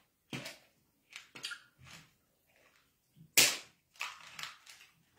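A string of short, sharp clicks and cracks at irregular spacing, the loudest about three and a half seconds in.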